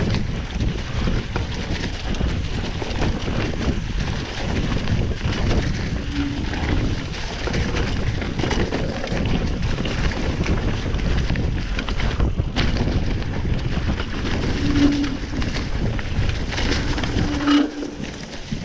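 Wind buffeting the microphone over a steady low rumble from a mountain bike riding along a dirt trail. The noise drops off sharply near the end.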